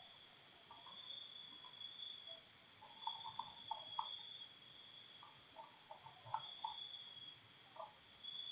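Insects chirping: a steady high trill runs throughout, with clusters of short, sharper chirps every second or two. Scattered soft clicks sit underneath.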